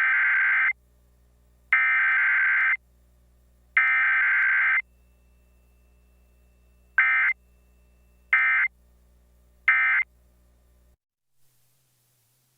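Emergency Alert System SAME digital header: three loud, harsh, buzzing data bursts of about a second each, a second apart. After a pause of about two seconds come three short bursts, the end-of-message code. There is no long attention tone in between, as is usual for a required weekly test.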